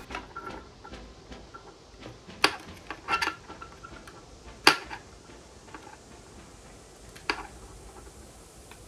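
Fingernails clicking against a plastic lens and 3D-printed frame while picking at the edge of a protective film. Several separate sharp clicks, the loudest about four and a half seconds in, with light handling noise between them.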